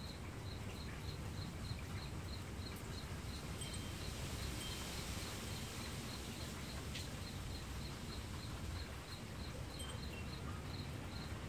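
Cricket chirping in a steady rhythm, about four short high pulses a second, over a low steady outdoor rumble.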